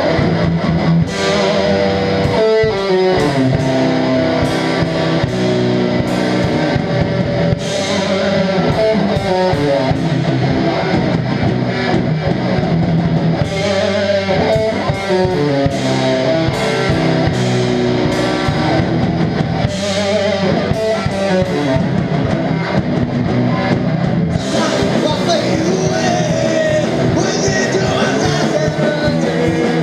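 Live rock band playing loudly: distorted electric guitars over drums, with the cymbals crashing harder and the sound filling out about three-quarters of the way in.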